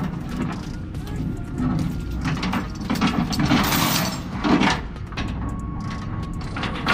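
Steel load chain rattling and scraping as it is pulled across a stack of steel plates, in irregular metallic clanks.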